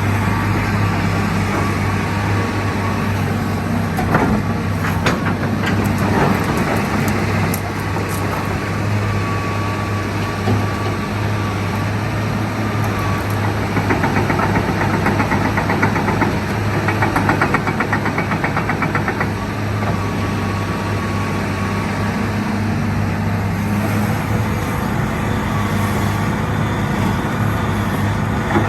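Hitachi EX225USR excavator's diesel engine running steadily with a deep hum and a faint whine that comes and goes. There are a few sharp clicks about five seconds in, and a rougher, faster pulsing around the middle.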